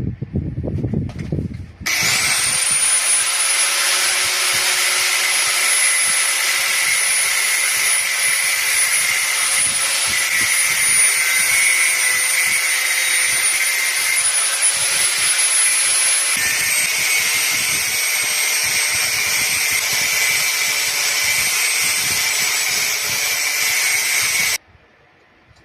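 Angle grinder spinning up and cutting into spring steel: a high motor whine that climbs quickly at the start over a steady grinding hiss. The whine settles slightly lower about two thirds through, and the sound cuts off abruptly near the end.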